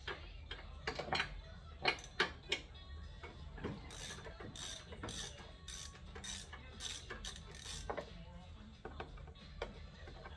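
A socket ratchet clicks in short strokes as a spark plug is worked loose, with several sharp tool knocks in the first few seconds and then a run of evenly spaced ratchet clicks.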